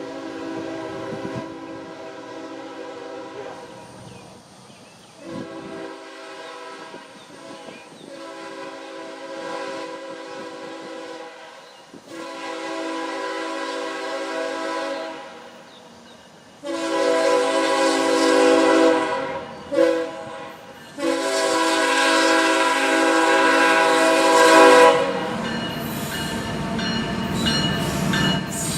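Diesel freight locomotive's air horn sounding a string of blasts that grow louder as the train approaches, ending in the long-long-short-long grade-crossing signal. About three seconds from the end, the rumble and clicking wheels of the arriving train swell up.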